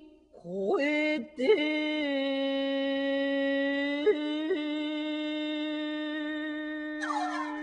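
A single voice singing in a soundtrack: a few short notes, then one long held note with two quick breaks in pitch about four seconds in. Instruments come in near the end.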